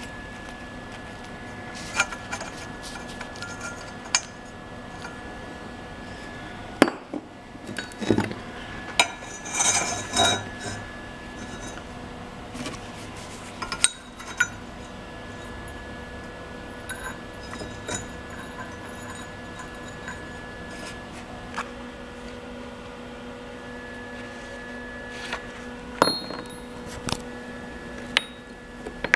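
Scattered metallic clinks and knocks of steel tubing and bender parts being handled, with a busier cluster of clatter about a third of the way in, over a steady hum.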